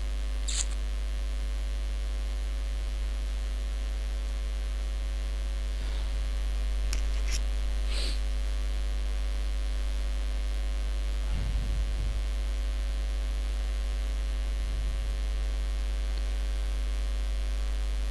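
Steady low electrical mains hum in the recording, with a few faint short ticks about half a second in and again around seven to eight seconds in.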